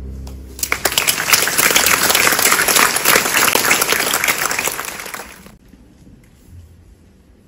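Audience applauding a grand piano performance. The applause starts about half a second in, over the last low chord of the piano fading out, and dies down after about five seconds.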